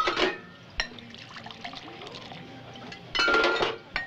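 Glass and metal barware clinking as a Bloody Mary is mixed, then, about three seconds in, a short pour of the drink from a metal shaker tin into a tall glass.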